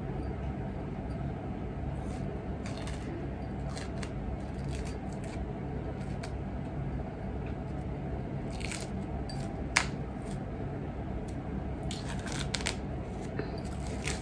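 Steady low room hum with scattered faint clicks and rustles from a mug of hot tea being handled, and one sharper click about ten seconds in.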